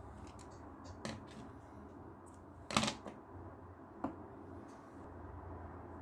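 Hands handling stitching thread and small tools on a cutting mat: a few light clicks and taps, one louder sharp sound almost three seconds in, and another tap about a second after it.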